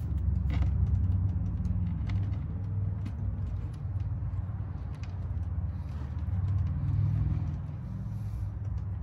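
A steady low rumble, swelling and easing a little, with a few faint light clicks.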